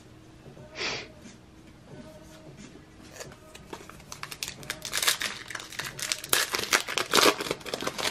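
Trading card pack wrapper being torn open and crinkled: a short rustle about a second in, then a dense run of crinkling and crackling from about four seconds in.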